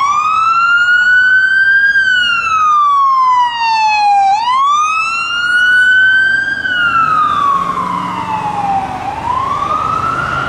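Ambulance electronic siren in wail mode on a 2020 Chevy Express / Crestline Coach ambulance, sweeping slowly up and down about once every four and a half seconds, each cycle a climb that levels off and then a steady fall. The van's engine and tyre noise rises underneath in the second half as it drives past.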